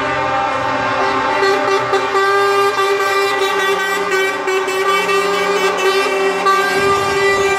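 Truck air horns held in a long, steady blast of several tones sounding together, as tractor units in a truck convoy drive past.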